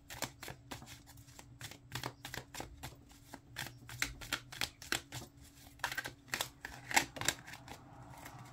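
A new deck of Tough Luck oracle cards shuffled by hand: a quick, irregular run of card flicks and slaps, with a few louder slaps about six to seven seconds in.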